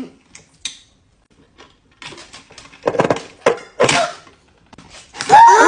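Pencil sharpener machine working on a thick pencil: a few clicks, then three short rasping grinding bursts. Near the end comes a loud voice wail that falls steadily in pitch.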